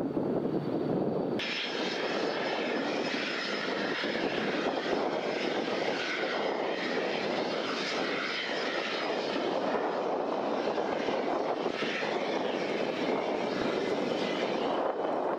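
A Boeing 787's Rolls-Royce Trent 1000 turbofan running on the ground, a steady jet rush. About a second and a half in the sound suddenly brightens, with a rushing hiss and a faint high whine added on top.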